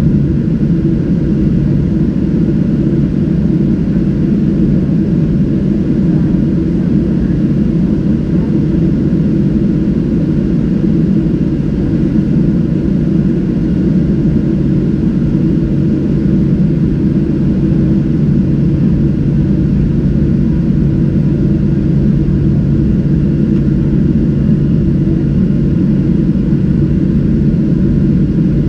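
Steady low cabin drone inside a Boeing 737-700 from a window seat over the wing. Its CFM56-7B engines are idling as the aircraft holds before takeoff.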